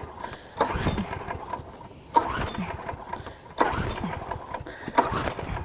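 Gasoline push lawn mower being pull-started four times, about a second and a half apart: each pull of the recoil cord spins the engine briefly, but it does not catch and run.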